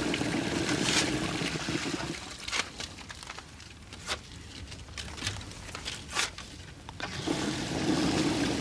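Toilet flushing, the water rushing and swirling, dying down after about two seconds. A quieter stretch follows with a few sharp clicks, then the toilet is flushed again about seven seconds in.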